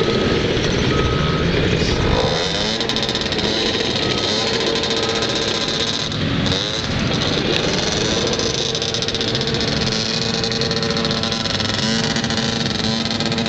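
Small youth ATV engine running under throttle, its pitch rising and falling a few times as the rider works the throttle.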